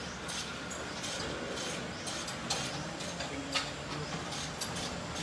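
Irregular light clicks and knocks, about two a second, of hand tools working on the car's steering and under-chassis parts.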